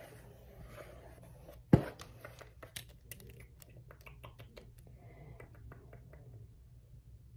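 ASMR tapping with a plastic pen on a paper pad: one sharp knock just under two seconds in, then a run of light clicks and taps.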